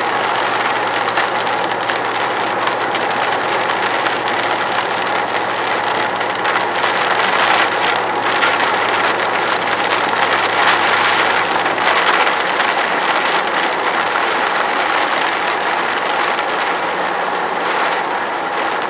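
Dense hail drumming steadily on a car, a thick clatter of countless small hits, over a low engine hum that fades out partway through.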